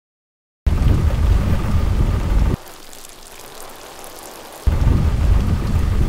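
Heavy rainstorm: a loud downpour with a deep low rumble. It comes in abruptly after a moment of dead silence, drops suddenly to a lighter hiss of rain about two and a half seconds in, and returns at full strength about two seconds later.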